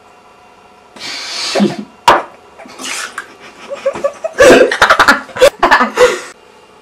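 A boy coughing and spluttering after taking a drink, in a run of harsh irregular bursts: a breathy splutter about a second in, a sharp knock just after, then a dense run of coughs in the second half.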